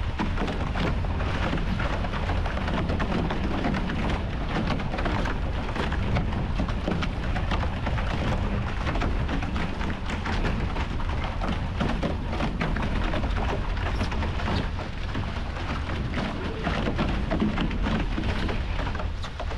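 Wind buffeting the onboard camera's microphone in a steady heavy rumble, with water rushing and splashing along the sailing catamaran's hull in a crackling hiss.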